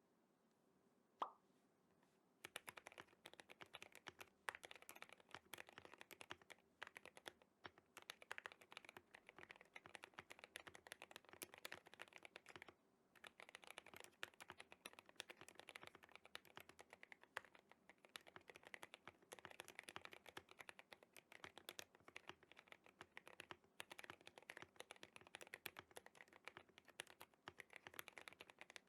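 A single pop about a second in, then fast continuous typing on a GMMK Pro mechanical keyboard with lavender switches on a polycarbonate plate. There is a brief pause in the keystrokes near the middle.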